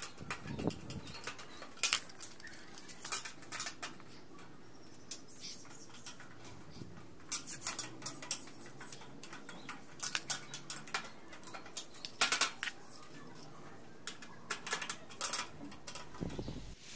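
Irregular light clicks, taps and clatter of aluminium window-frame profiles being pressed together and screwed at a corner joint.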